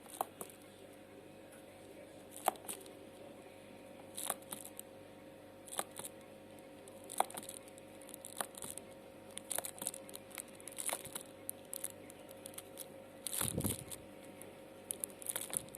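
Faint scattered clicks and rustles of handling noise, with a longer rustle near the end, over a faint steady hum.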